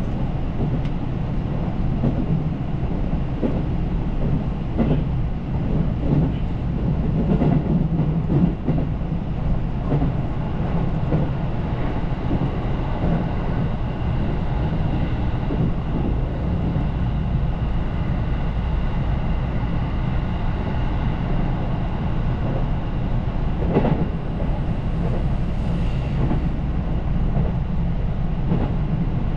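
Electric passenger train running at speed, heard from on board. A steady low rumble carries scattered clacks of the wheels over rail joints; they come most often in the first third and once more near the end.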